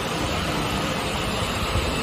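Walk-behind concrete floor grinder running steadily as it works the floor: an even, continuous noise with a low rumble underneath.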